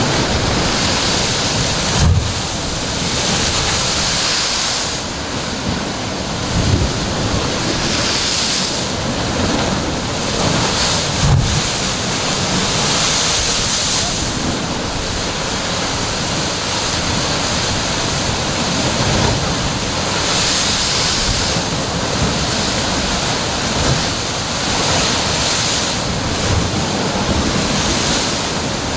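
Heavy surf crashing into a narrow rocky inlet, the roar of breaking water swelling every few seconds, with a few dull thumps as waves hit the rock. Wind buffets the microphone throughout.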